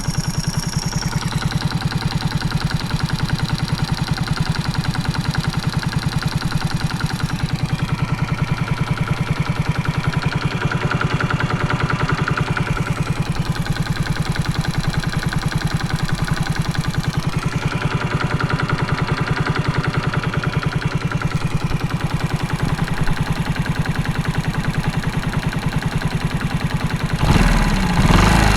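Honda Super Cub single-cylinder four-stroke engine, bored up to 88cc, running at a steady idle with an even, rapid beat. It carries a metallic knocking that the owner suspects may be piston slap. Near the end the sound turns suddenly louder and rougher.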